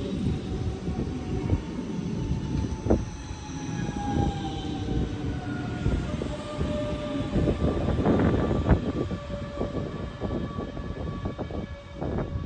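DB class 424/425/426 electric multiple unit running, with a low rumble and irregular knocks from the wheels and track, and thin whining tones that slide slowly down in pitch.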